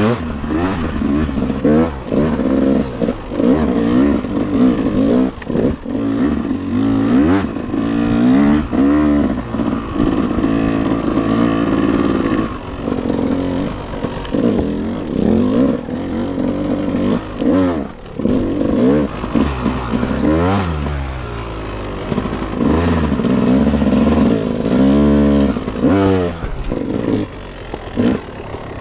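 Off-road motorcycle engine under way on a dirt trail, its pitch climbing and dropping over and over as the throttle is opened and closed.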